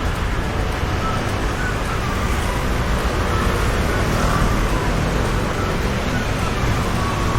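Steady road traffic noise: a continuous rumble of passing motor vehicles.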